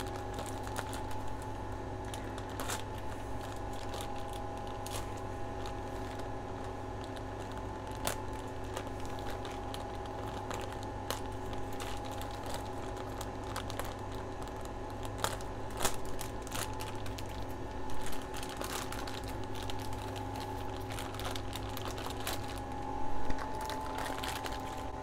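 Clear plastic mushroom grow bag crinkling and rustling as gloved hands handle and open it, with scattered light clicks and taps and a few louder rustles near the end. A steady hum of equipment runs underneath.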